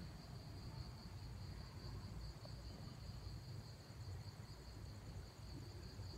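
Faint, steady, high-pitched insect trilling, like a cricket, over a low rumble.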